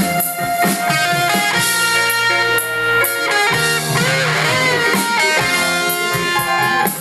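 Band playing the instrumental intro of a Mandarin pop ballad, led by electric guitar over bass and keyboard, with a few guitar notes bending in pitch about halfway through.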